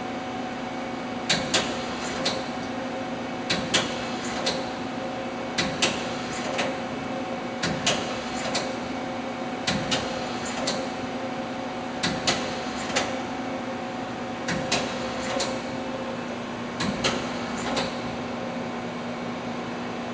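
Hurco CNC turning center running under power with a steady hum. Groups of sharp mechanical clicks repeat about every two seconds.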